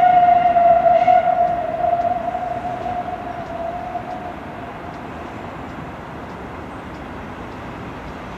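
Steam locomotive whistle (ČSD class 498.0 'Albatros') holding one long blast that is already sounding at the start and fades out after about four seconds. It leaves the steady noise of the approaching train.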